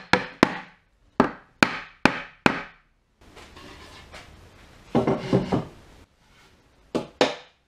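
Plywood cabinet panels being knocked into their tab-and-slot joints: a run of sharp wooden knocks about every half second, then wood scraping and sliding with a few more knocks, and two last knocks near the end.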